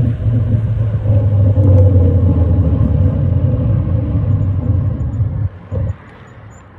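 Wind rumbling hard on a phone microphone while riding a bike. The rumble is loud and low, and it cuts off about five and a half seconds in, with one short return just after.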